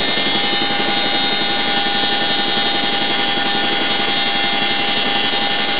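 CH-47 Chinook tandem-rotor helicopter in flight, heard from inside the cabin by the open rear ramp: a steady, loud drone of rotors and twin turbine engines with several constant whining tones.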